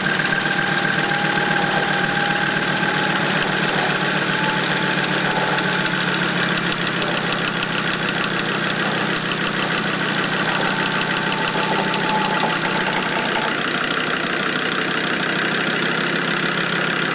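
Warn electric winch on a Land Rover Defender reeling in its steel cable under load, hauling the vehicle up the slope, with a steady whine over the vehicle's engine running.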